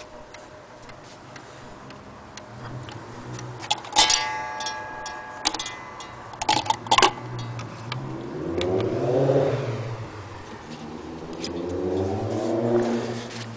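Junghans wall clock movement ticking, with a single strike on its gong about four seconds in that rings out and fades, then a few sharp clicks around seven seconds. In the second half two swelling hums rise and fall in pitch.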